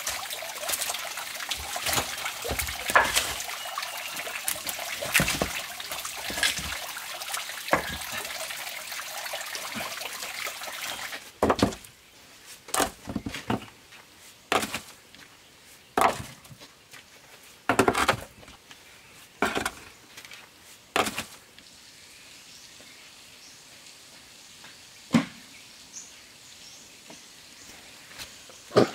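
Water trickling over rocks, with footsteps crunching on stones and dry leaves. About eleven seconds in the water sound stops. A series of sharp knocks follows, about one every second or two, as stones are set down against one another.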